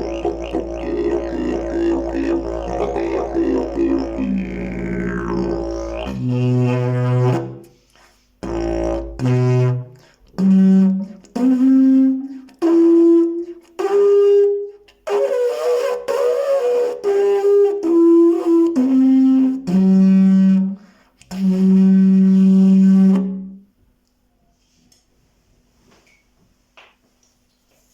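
Fiberglass triple-slide didgeridoo played. It starts with a continuous droning note full of shifting overtones. From about six seconds in it changes to a string of short, separate blown notes that step up in pitch and then back down. The last note is held a little longer and stops about four seconds before the end.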